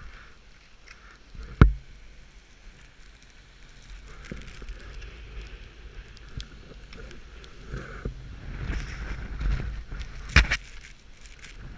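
Skis sliding and scraping over snow, with a low rumble of wind on the microphone. There are sharp knocks about a second and a half in and again, louder, near the end.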